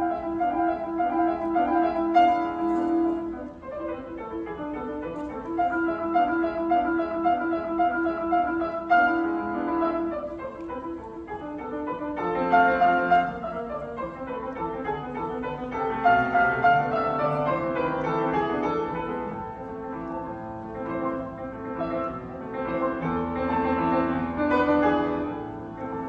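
Solo piano playing a fast passage with rapidly repeated notes, swelling louder and softer.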